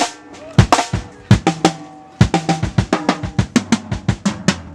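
Acoustic drum kit played in a sound check: sharp snare and kick strokes, then quick fills down the toms, the tuned drums ringing at stepped pitches.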